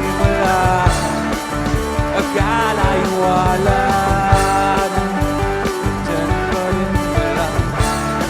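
A rock band playing a song, with a steady drum beat, guitars and a singing voice.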